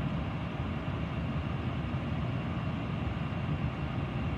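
Steady, even rumble and hiss of an airliner flight deck's background noise, with no alert tones or callouts.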